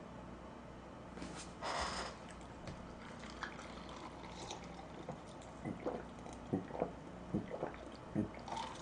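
Cola being drunk from a can: faint liquid sounds and a string of small gulping swallows in the second half, after a short hiss about two seconds in.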